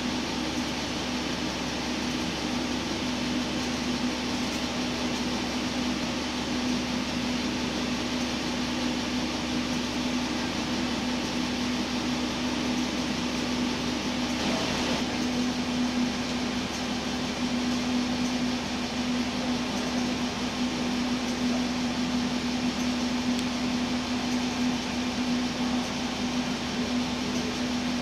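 Steady mechanical hum inside a stationary diesel railcar: the idling engine and on-board equipment droning evenly, with one constant low hum.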